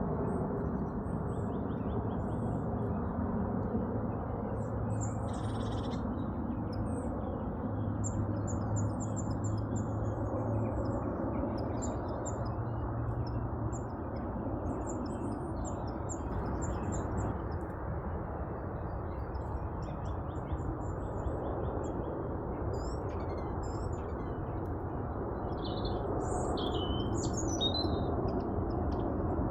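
Small garden birds chirping in short, high, scattered notes over a steady low background rumble, with a few louder calls near the end.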